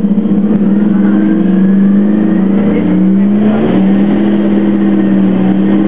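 Detroit Diesel Series 50G natural-gas engine of an Orion VII city bus running with a steady drone. Its pitch dips slightly about three seconds in, and a faint whine rises over the first couple of seconds.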